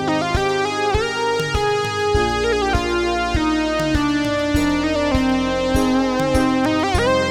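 Moog Matriarch Dark analog synthesizer playing a sustained patch, its notes sliding up into new pitches now and then, over a steady pattern of short clicks about twice a second.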